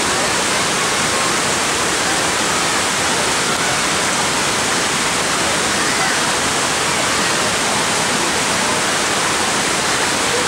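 Waterfall: a steady, loud rush of falling water that does not let up.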